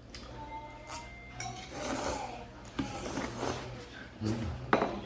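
Tableware clinking and scraping against a bowl while noodles are eaten, with short clicks and rustles, and a louder rush of noise near the end.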